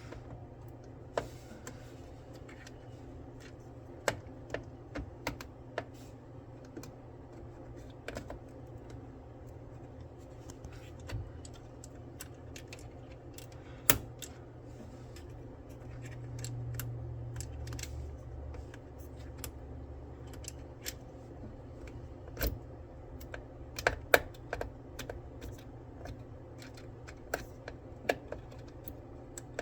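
Irregular small plastic clicks and taps as a DDR5 RAM stick is handled and pressed into a motherboard's DIMM slot, over a low steady hum.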